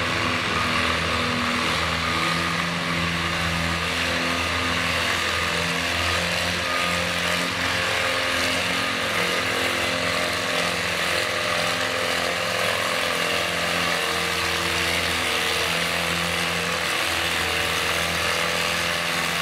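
Farmall H tractor's four-cylinder engine working hard under load as it pulls a weight-transfer sled, a steady heavy engine note that wavers slightly in pitch.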